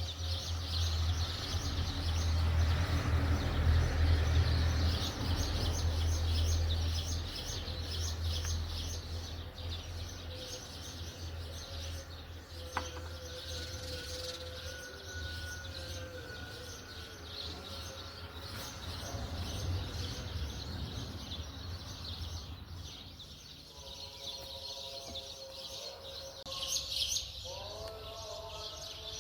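Birds chirping rapidly and continuously over a low rumble that is loudest in the first ten seconds, with a short pitched call near the end.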